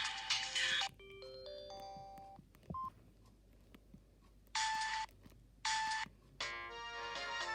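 Samsung SGH-D500 ringtones playing one after another. A bright synthesized tone ends about a second in and a soft short melody follows. Then come two short bright bursts, and a new polyphonic tune starts about six and a half seconds in.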